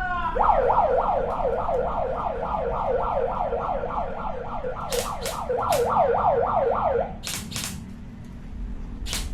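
Electronic siren yelping in fast falling sweeps, about four a second, for roughly six and a half seconds before it cuts off. A few sharp snaps come near the middle and just after it stops.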